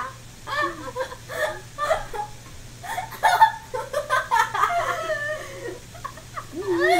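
A girl and a woman laughing hard together in repeated short bursts, the loudest peal a little after three seconds in.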